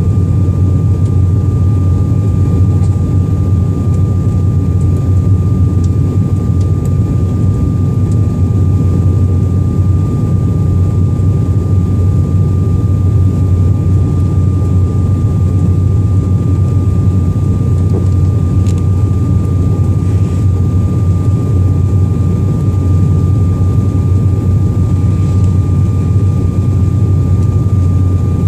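Jet airliner engines and airflow heard from inside the passenger cabin during the climb after takeoff: a steady low drone with a thin, constant whine above it.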